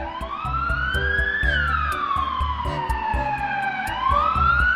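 Ambulance siren wailing: the pitch rises over about a second and a half, falls slowly for a little over two seconds, then starts rising again near the end. Background music with a steady beat plays underneath.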